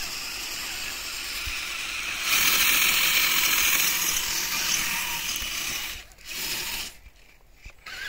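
Electric RC vehicle's drivetrain running as it churns through snow. It is louder from about two seconds in, drops out about six seconds in, and comes back only briefly after that.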